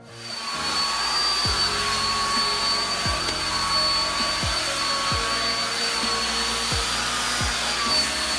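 Handheld hair dryer blowing at full speed, a steady rush of air with a high motor whine, coming up to speed in about the first second. At the very end its pitch begins to fall as it is switched off.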